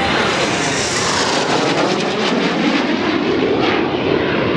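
Loud, steady jet noise from a formation of CT-114 Tutor jets, each powered by a single turbojet, flying overhead.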